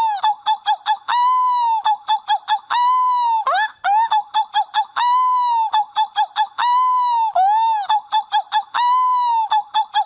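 Seagull calling over and over: long arched yelps about every two seconds, each followed by a short dipping note and a quick run of four to six short notes.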